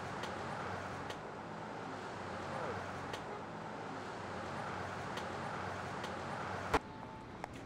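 Steady city street ambience, mostly traffic noise, with a sharp click near the end.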